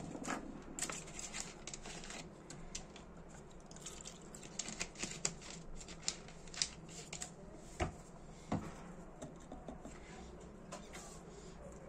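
Scattered light clicks, taps and scrapes of small tools and parts being handled on a workbench, with two louder knocks about eight seconds in.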